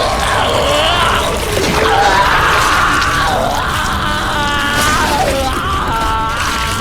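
Mysterious Titan's giant-creature cry, a film sound effect: a long, strained, screeching vocal that swoops up and down in pitch over a deep, steady rumble.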